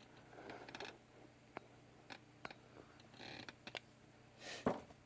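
Faint handling noise: scattered light clicks and taps, with a louder clack near the end.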